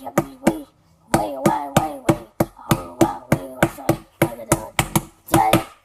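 Sharp, evenly spaced clicks, about three a second, like a beat, with a voice humming or chanting between them that drops out briefly about a second in.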